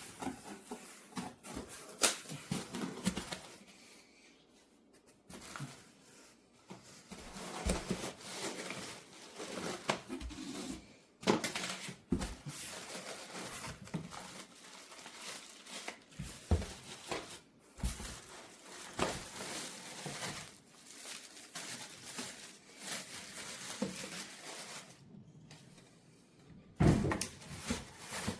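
Irregular handling noises: rustling and crinkling with scattered sharp knocks and clicks, the loudest about two seconds in, near eleven and twelve seconds, and near the end.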